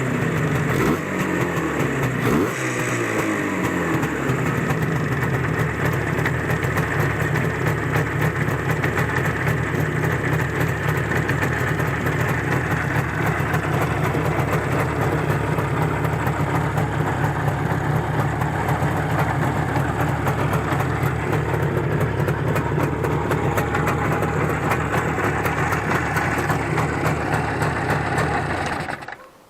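IZh Jupiter-5 motorcycle's two-cylinder two-stroke engine running, its revs falling over the first few seconds and then holding steady. It cuts off just before the end.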